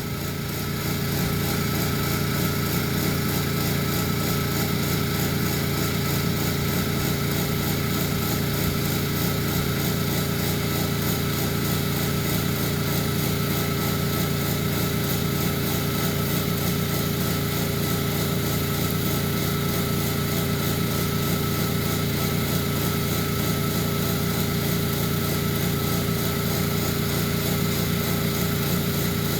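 A gutter-cleaning machine's motor running steadily at constant speed, with a steady hum.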